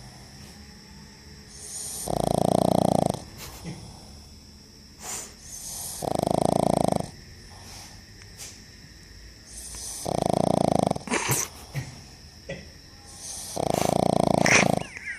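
A pug snoring in its sleep: four snores, each about a second long, coming roughly every four seconds.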